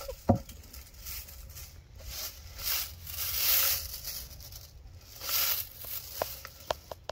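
Stiff grooming brush drawn in slow scratchy strokes over a cow's hair coat, several strokes of about half a second to a second each. A sharp knock comes just after the start, and a few short ticks near the end.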